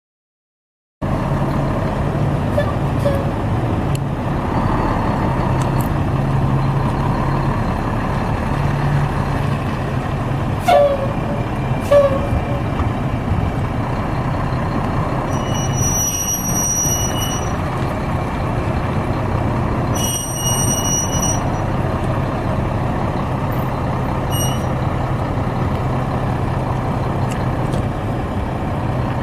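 Mack CH613 semi tractor's Mack E7 12.0L inline-six diesel running steadily as the truck is driven around, starting about a second in. Two short knocks come about eleven and twelve seconds in, and two brief high-pitched squeals around sixteen and twenty seconds in.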